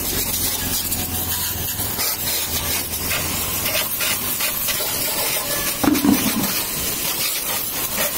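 High-pressure water jet from a pressure washer hissing steadily as it sprays onto a motorcycle's bodywork, engine and front wheel. A low hum fades out in the first two seconds, and a brief louder sound comes about six seconds in.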